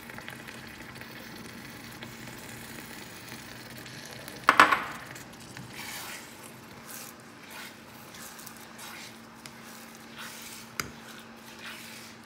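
A silicone spatula stirring sugar into chilli paste in a nonstick frying pan, with short scraping strokes over a sizzle from the pan. A short, loud clatter about four and a half seconds in.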